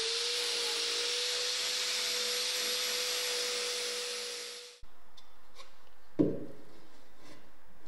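Power tool spinning an abrasive paint-stripping wheel on sheet steel: a steady whine with hiss that fades out about four and a half seconds in. A single knock follows about six seconds in.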